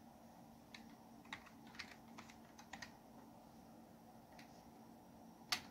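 Faint, scattered keystrokes on a computer keyboard as a short DOS command is typed and entered, with one sharper, louder click near the end.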